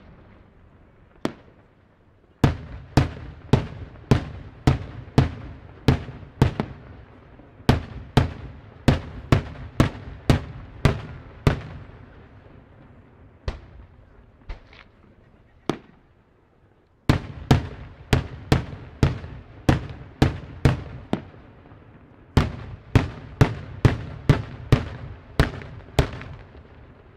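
Daytime aerial fireworks bursting overhead: a fast series of sharp bangs, about two a second, each trailing off in a low rumble. A lull of a few scattered bangs in the middle, then another rapid run.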